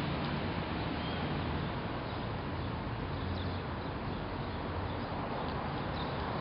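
Steady outdoor background noise: a constant hiss with a low rumble underneath, and a few faint, short high chirps scattered through.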